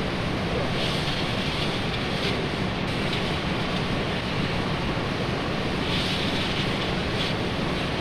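1911 marine triple-expansion steam engine running steadily, a dense, unbroken mechanical noise over a low rumble. A hiss swells up twice, about a second in and again about six seconds in.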